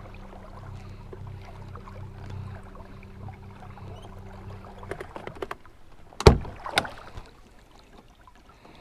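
Small boat's electric trolling motor running with a steady hum, cutting off about five seconds in; a few light knocks follow, then two loud knocks half a second apart, the loudest sounds here.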